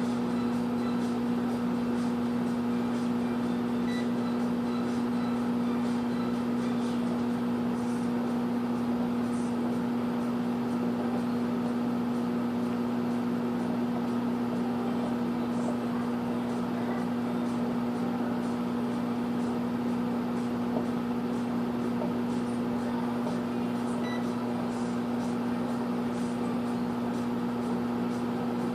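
Microwave oven running with a steady hum. A faint, short high-pitched blip comes about four seconds in and again near twenty-four seconds in, at the moments the owner points to as the microwave's problem.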